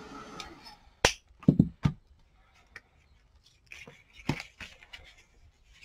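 Handheld craft heat tool blowing steadily, switched off about a second in. A sharp click and a few knocks follow as it is set down and craft pieces are handled on the table, with lighter taps later.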